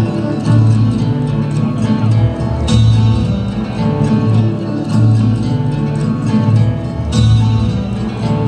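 Recorded dance music with a plucked-string melody over a steady beat, played over stage loudspeakers.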